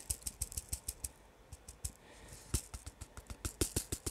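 Acrylic diamond-painting drills clicking and rattling in a plastic drill tray as it is tapped and shaken to settle them into its grooves. The clicks come in quick runs of about eight a second, with short pauses between runs.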